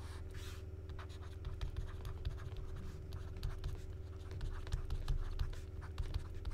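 Stylus scratching and tapping on a tablet while words are handwritten: one longer stroke at the start, then many short scratches and ticks, over a steady low hum.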